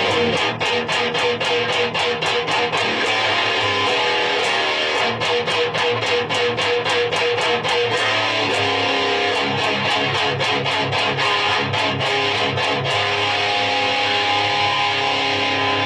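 Electric guitar through a high-gain amplifier with the guitar volume full up, played as a heavily distorted riff of fast, rhythmic palm-muted chugs, ending in ringing chords over the last few seconds. The amp's hiss reduction mod is switched on.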